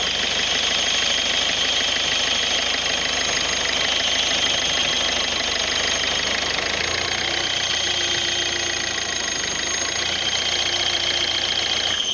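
Car engine running steadily with a continuous high-pitched whistle, which the owner puts down to the clutch disc: a sign that the clutch kit needs replacing. The sound cuts off suddenly near the end.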